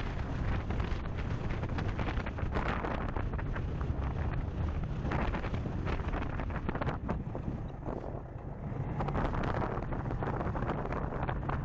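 Strong wind buffeting the microphone, a steady rushing rumble that eases briefly about eight seconds in.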